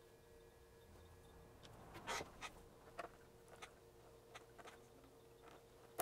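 Small parts and a small metal tool handled by hand: a soft rustle about two seconds in, then scattered light clicks and taps over a faint steady hum.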